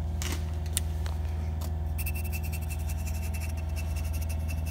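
Steady electric motor hum; about two seconds in, a higher whine with a fast, fine buzz joins it, typical of a heat gun being run to warm permanent marker on an aluminium scope rail.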